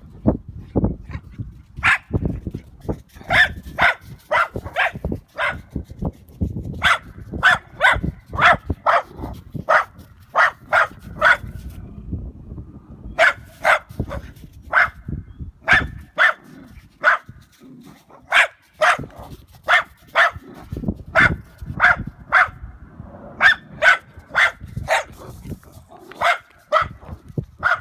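Small dog barking at horses in quick volleys of short, sharp barks, with brief pauses between volleys.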